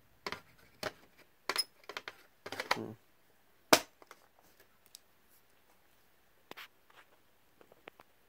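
Handling noise from paper: short rustles and light clicks as the smoke detector's instruction leaflet is handled and its pages turned, with one sharper click just under four seconds in and a few faint ticks later.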